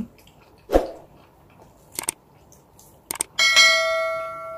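Subscribe-button sound effect: a few quick mouse-style clicks, then a bright bell chime that rings and fades over about a second and a half. Before it, about a second in, a short mouth sound from eating.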